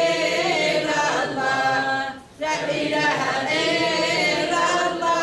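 An elderly woman singing a religious chant unaccompanied, in long held phrases with a short breath pause about two seconds in.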